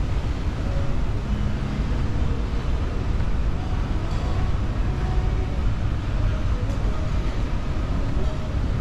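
Steady low rumble of a large indoor mall's background noise, with a faint wash of distant sound above it and no distinct events.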